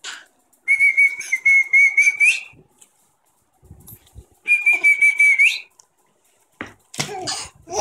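Two long steady whistled notes, the first about one and a half seconds and the second about one second, each flicking up in pitch at the end, with a rapid breathy chuffing under them. A baby starts laughing near the end.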